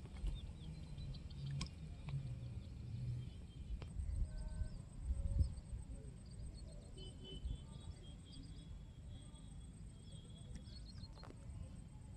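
Open-air ambience: a low wind rumble on the phone microphone, with a louder low bump about five seconds in and faint birds chirping, mostly in the second half.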